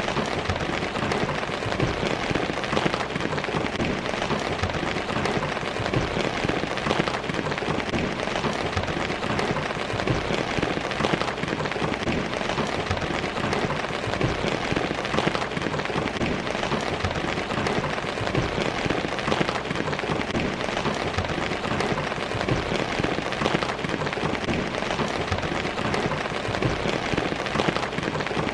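Steady rain falling, a dense even hiss of many fine drop impacts.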